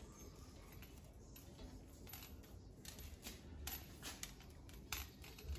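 Faint, irregular metallic clicks and taps as the parts of a stainless steel pull-down kitchen faucet are fitted together by hand.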